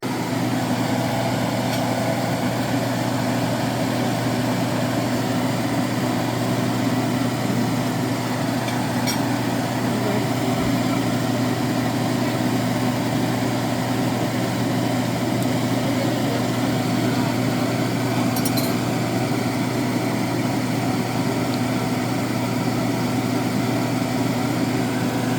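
Steady low mechanical hum, like a running motor or fan, unchanging throughout, with a couple of faint clinks about a third and two-thirds of the way through.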